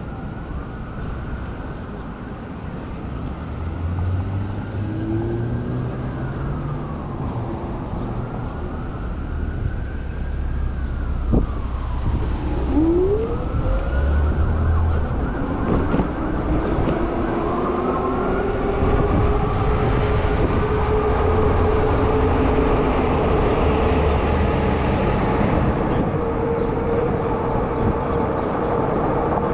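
Emergency-vehicle siren wailing, its pitch sweeping up and down over city traffic. About twelve seconds in, a whine rises in pitch and then holds steady, with road and wind noise growing louder.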